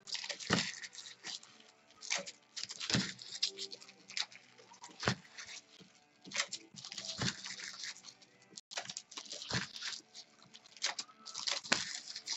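Trading card packs and cards being handled: irregular crinkling, rustling and light clicks of wrappers and card stock, with a little tearing.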